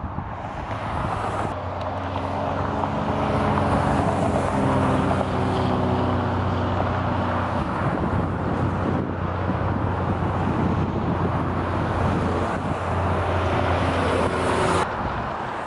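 Highway traffic: a steady rush of tyres from passing cars and trucks, with the low drone of a heavy truck engine that slowly falls in pitch as it goes by. The sound drops off abruptly near the end.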